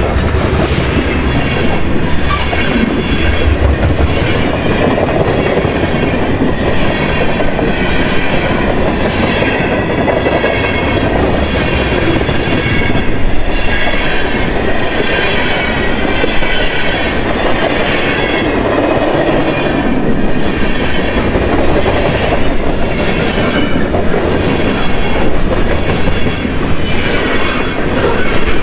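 Freight cars of a long mixed freight train rolling past at speed: a steady heavy rumble with steel wheels clacking over the rail joints and a wavering high squeal from the wheels on the rail.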